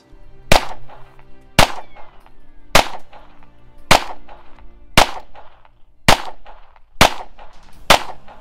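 Ruger Mark IV Standard .22 LR pistol firing eight single shots at about one a second, in slow aimed fire, over background music.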